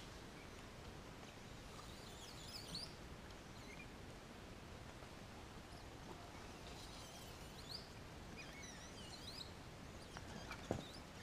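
Quiet forest ambience: a steady faint hiss with scattered short, high bird chirps and calls from several directions. A single sharp tap or click sounds about ten and a half seconds in.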